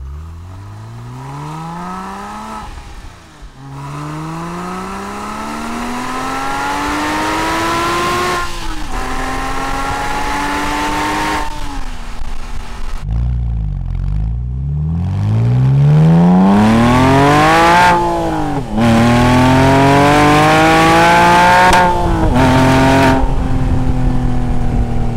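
Porsche 997 Carrera S flat-six engine accelerating hard through the gears. Its pitch rises in long sweeps and drops suddenly at each upshift, about four times. The first pulls are on the stock exhaust; the louder later pulls are with the mufflers deleted, straight-piped.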